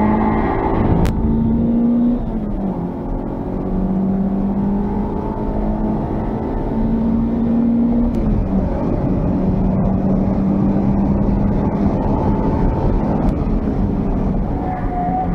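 Honda Civic's D16Z6 1.6-litre SOHC VTEC four-cylinder engine heard from inside the cabin under way on a race track. The engine note climbs slowly and drops twice, about two and a half and eight and a half seconds in, then holds steady, over road and tyre noise.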